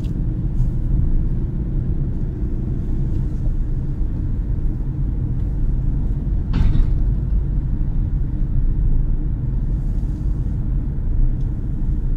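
Cabin noise in a 2018 Dacia Duster 1.6 SCe driving over an uneven road: a steady low rumble of tyres and engine in which the bumps are not very pronounced. One short, sharper noise comes about six and a half seconds in.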